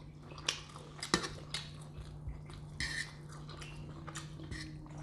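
Close-up eating sounds: chewing with a string of short, sharp mouth smacks and clicks at irregular intervals, over a steady low hum.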